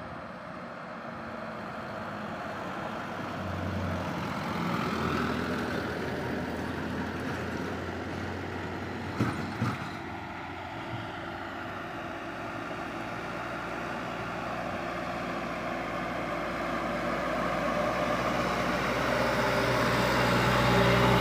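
Heavy road traffic passing: the running engines of large vehicles, trucks or buses, with a low hum that grows louder toward the end as one approaches. Two short knocks sound about nine seconds in.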